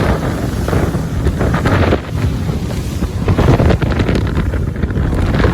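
Wind buffeting the microphone in uneven gusts on a boat moving over the open sea, with the rush of water beneath.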